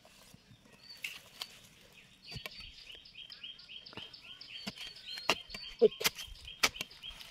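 Ribbed steel digging bar stabbing into dry, stony soil to dig out elephant yam, in a string of sharp knocks and scrapes, the hardest strikes in the second half. Behind it a bird chirps in a fast, steady series from about two seconds in.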